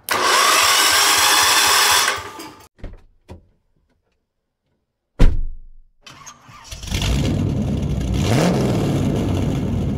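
Electric starter cranking the Lincoln WeldanPower 150's engine for about two seconds, with no fuel in it yet, so it does not fire. After a pause there is a sharp hit, then a steady engine-like rumble with a brief rising rev near the end.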